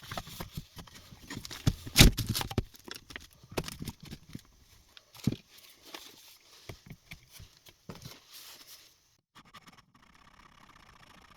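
Plastic antenna-mount parts being handled and test-fitted on a workbench: irregular clicks, knocks and light scrapes, loudest about two seconds in, dying away after about nine seconds.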